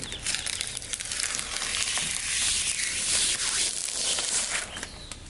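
Protective plastic film being peeled off a new headlight lens: a continuous crinkling, tearing rustle of plastic that builds to its loudest in the middle and eases off near the end.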